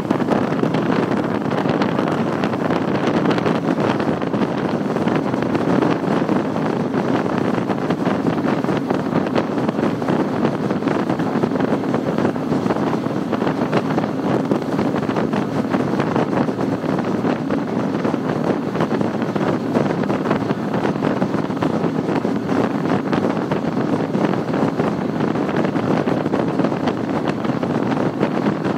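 Triple Mercury 600 hp V12 Verado outboards running at high speed, mixed with rushing water and wind buffeting the microphone in a steady, even roar of noise.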